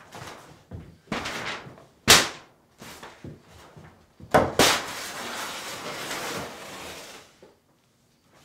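Large hanging sheets of paper being struck and torn: several sharp slaps and hits, then a long ripping tear lasting a couple of seconds, about halfway through.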